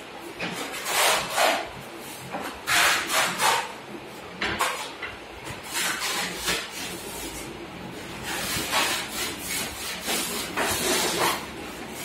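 Flat steel putty blade scraping wet wall putty across a plastered wall in short strokes, some in quick runs of two or three.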